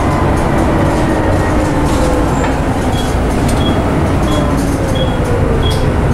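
Volvo B7TL double-decker bus heard from inside the passenger saloon: engine and drivetrain running, with a whine falling in pitch as the bus slows. From about halfway, a short high beep repeats about one and a half times a second.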